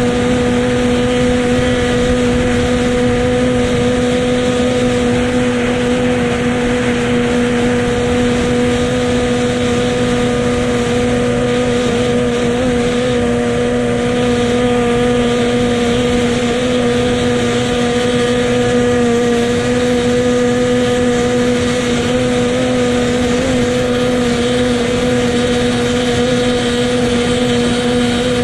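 Motorboat engine running steadily, holding one unchanging pitch with no revving up or down.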